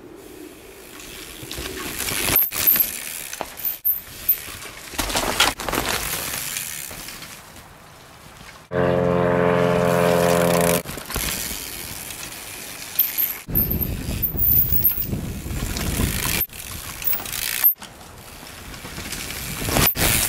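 Mountain bikes riding past on a dirt trail, tyres rushing and scraping over dry ground and pine litter, in several short takes that cut off abruptly. About nine seconds in, the passing bike gives a loud, steady buzz for about two seconds.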